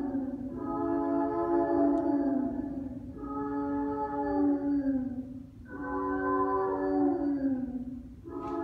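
Music of layered sung voices holding a chord for a few seconds at a time, each phrase sliding down in pitch at its end, three times.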